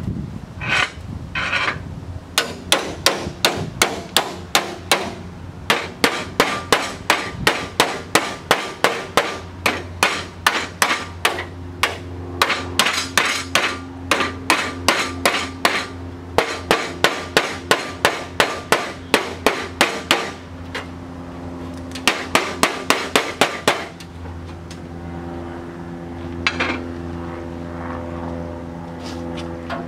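Hammer tapping the edge of a sheet-steel car body panel, folding over a flange that has been slit with relief cuts so it can follow the curve. The blows come fast and evenly, about three a second, in runs with short pauses. They stop about four-fifths of the way through, leaving a steady hum.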